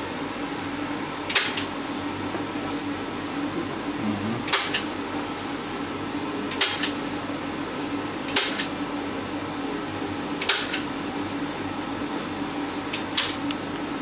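Palette knife scraping oil paint in six short strokes, about every two seconds, some of them doubled. A steady low hum runs underneath.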